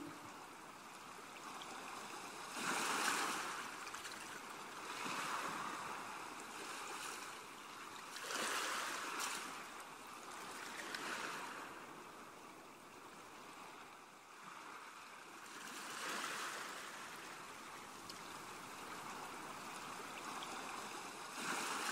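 Waves washing onto a shore, swelling and falling back every few seconds.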